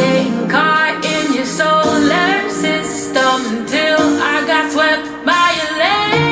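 Pop song with a singing voice over instruments; the deep bass drops out through this stretch and comes back right at the end.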